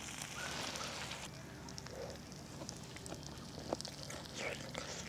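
Pork belly sizzling on a cast-iron griddle over a wood fire, cutting off about a second in; after that a quieter background with scattered small clicks and crackles.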